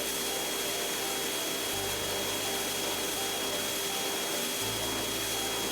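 Pressure washer spraying: a steady hiss of water jet.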